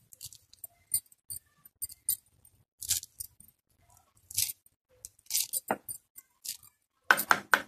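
Small kitchen knife cutting through a bunch of fresh coriander held in the fingers: short, crisp snips every half second to a second, with several quicker ones near the end.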